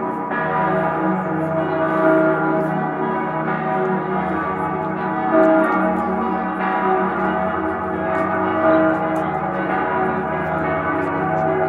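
Salzburg Cathedral's full peal: several large church bells ringing together, their strokes overlapping in a continuous, dense wash of ringing tones with fresh strikes every second or so.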